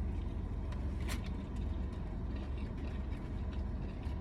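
Steady low rumble of a motor vehicle, with a faint click about a second in.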